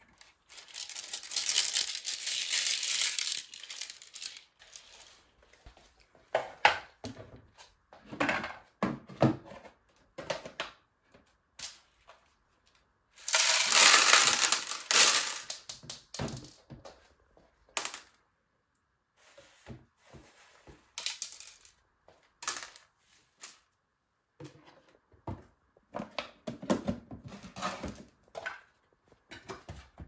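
The clear plastic dust container of a Bosch BGS21X320 bagless vacuum cleaner is handled and taken apart, giving scattered plastic clicks and knocks. There are two longer noisy spells, about a second in and again around the middle, as the collected beads and paper are shaken and tipped out into a plastic bin.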